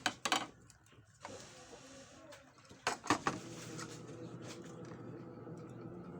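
Two short clusters of sharp clicks and knocks, about three seconds apart, over a steady low hum.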